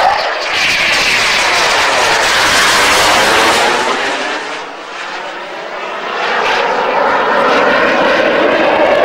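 Fighter jet's engines heard loud from the ground as the jet manoeuvres overhead, a continuous roar with a slow, swirling sweep in its tone; it fades somewhat about halfway through, then swells back up.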